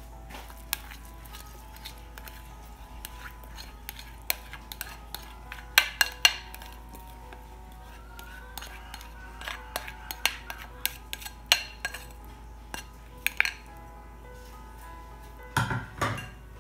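Scattered clinks and taps of a bowl and metal whisk against a glass mixing bowl as grated carrot is tipped and scraped into cake batter, with a duller knock near the end, over background music.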